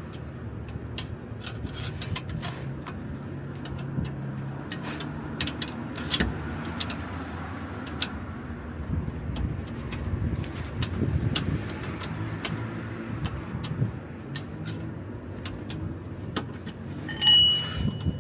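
Suzuki Every van's suspension knocking and clicking in sharp, irregular clunks over a steady low road and engine rumble: the shock absorber noise ('kotokoto') that the owner is chasing. A louder high squeak comes near the end.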